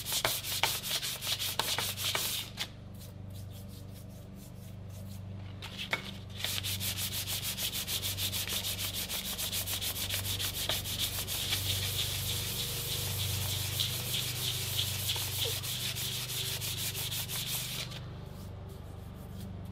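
Hand sanding of a metal part with sandpaper on a block: quick, even back-and-forth rasping strokes that pause for a few seconds about two and a half seconds in, resume, then stop near the end. A steady low hum runs underneath.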